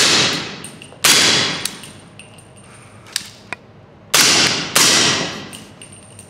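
Three suppressed gunshots from an AR-style pistol fitted with a Dead Air Wolfman suppressor: one about a second in, then two about half a second apart near four seconds. Each is a sharp crack with echo trailing off in the concrete indoor range, and there are a few light clicks in between.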